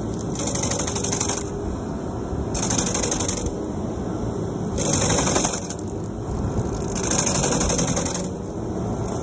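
A Vermeer FT300 tracked stump grinder runs steadily while its toothed cutter wheel is swept back and forth across a stump. Each pass bites into the wood as a burst of high-pitched grinding and chipping, four times, about every two seconds.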